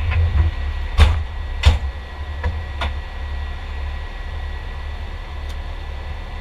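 Fire engine idling with a steady low rumble, heard from inside the cab. About a second in come two sharp knocks in quick succession, then a few lighter clicks: the cab door being pushed shut and latching.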